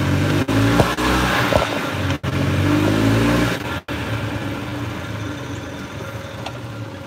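Golf cart running at speed, its motor note rising about two seconds in, then easing off and fading after about four seconds, with a few brief clicks.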